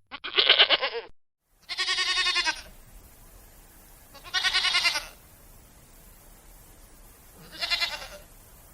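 Goats bleating: one call, a short break, then three quavering bleats a couple of seconds apart.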